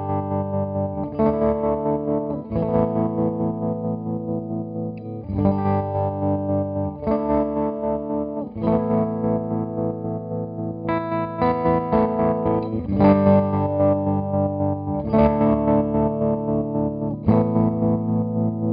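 Electric guitar chords played through a Coppersound Loma Prieta tremolo pedal in amplitude tremolo mode, with high depth and the grit turned down, so the volume pulses rapidly up and down. The chords change every second or two as the pedal steps through its waveshapes (sine, square, ramp up, ramp down).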